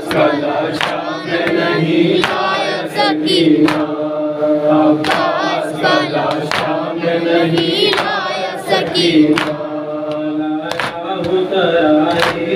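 Male voices chanting a noha, the Shia lament, in unison over a microphone, with sharp hand slaps on the chest (matam) roughly once a second.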